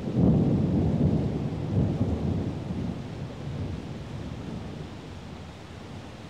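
Thunderstorm: a peal of thunder breaks right at the start, rumbles low and loud for about two seconds with a second swell, then slowly dies away under steady rain.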